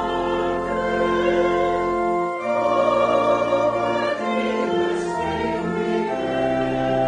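Congregation singing a hymn together in long held chords that change every second or two.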